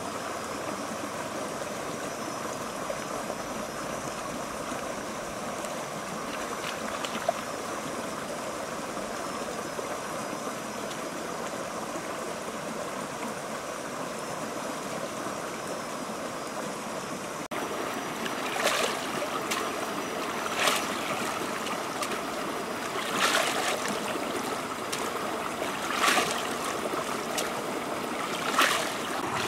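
Shallow river running over rocks. In the second half, a woven basket of crickets is dipped and swished in the water, giving five splashes about every two to three seconds.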